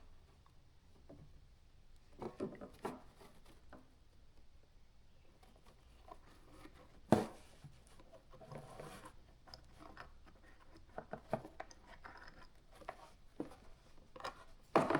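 Faint handling noises from soldering a wire splice: small clicks, taps and rubbing of wire and tools, with one sharper click about seven seconds in.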